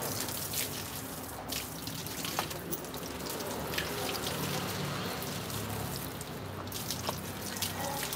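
Running water from a garden hose spraying and splashing onto a dog's coat and the wet concrete beneath, a steady rush with scattered small drips and ticks.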